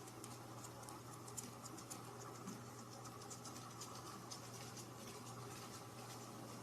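Faint, irregular scratching and light ticking clicks over a steady low hum.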